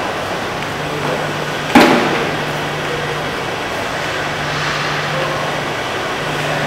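Low, steady hum of car-park ventilation fans. About two seconds in, a single sharp bang rings off the concrete.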